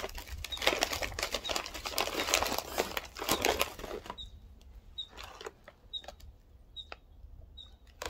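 Crinkly snack bag of banana chips being opened and a chip pulled out, crackling for about four seconds. It then goes quieter, with a few faint clicks over a low rumble of wind on the microphone.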